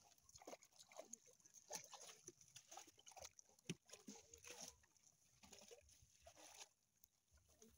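Faint, scattered splashing and sloshing of shallow muddy water as hands and feet move through a rice-field ditch.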